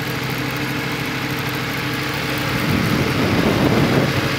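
Motorcycle engine running steadily at low speed, getting somewhat louder and rougher for about a second and a half past halfway.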